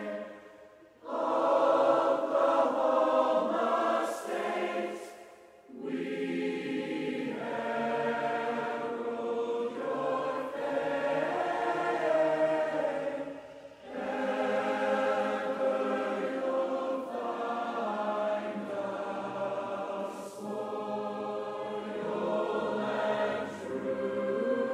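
Background music: a song with sustained, choir-like singing that drops away briefly three times.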